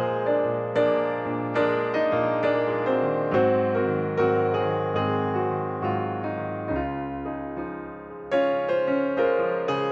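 Background music: a slow, gentle piano tune, each note struck and left to fade.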